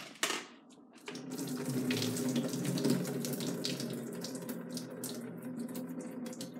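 Leftover cooking water poured from a steel pot of cooked cauliflower rice through a plastic colander, streaming steadily and splashing into a stainless steel sink from about a second in. A brief knock comes at the very start.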